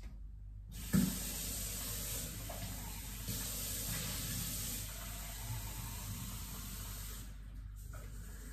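Kitchen tap running water into the sink, starting with a knock about a second in and shutting off shortly before the end.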